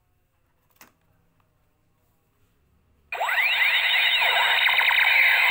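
Light-and-sound toy pistol playing its electronic sound effect: many quick, overlapping rising and falling pitch sweeps that start suddenly about three seconds in. A single faint click comes about a second in.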